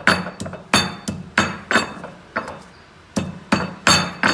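Pestle striking a stone mortar over and over, about three knocks a second with a short pause midway, each knock ringing briefly. The pestle is hitting bare stone, the sign that the leaves have been pushed out of the middle of the mortar.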